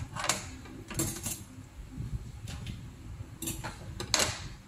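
Kitchen handling noise as raw beef is portioned into plastic food containers: about half a dozen short clatters and scrapes of plastic tubs and a cutting mat on the counter.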